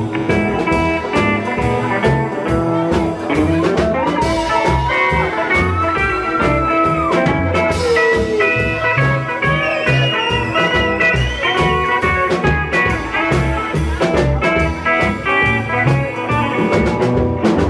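Live rockabilly band playing an instrumental break: a Telecaster-style electric guitar takes a solo with bent notes over a steady drum beat and upright bass.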